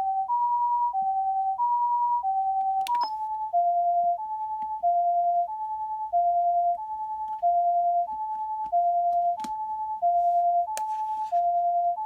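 Osaka Siren OPS-5101V-Q ambulance siren amplifier sounding the Japanese two-tone "pee-po" ambulance siren, a high and a low tone alternating evenly, each held about two-thirds of a second. About three seconds in, a sharp click comes and the tone pair drops slightly lower in pitch, then keeps alternating.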